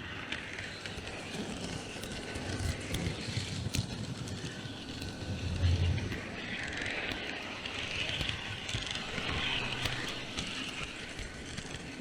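H0-scale model diesel shunter with sound decoder pushing a track-vacuum car along the rails: steady rolling and motor noise with scattered small clicks, swelling briefly about six seconds in.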